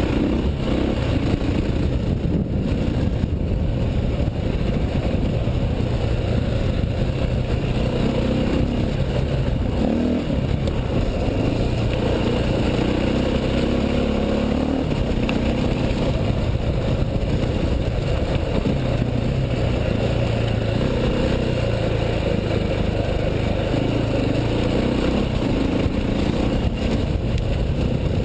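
Enduro motorcycle engine running continuously as the bike rides a rough gravel trail, its note rising and falling with the throttle.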